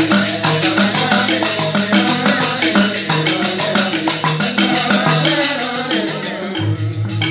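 Balinese genjek music: an ensemble chanting and playing, a fast steady clatter of small hand percussion over stepped low notes and a low drone. The high clatter drops out for a moment near the end.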